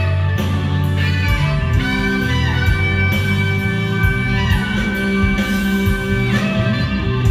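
Live rock band playing an instrumental passage: drums and bass under a lead line that holds a long high note from about two seconds in until about six seconds in.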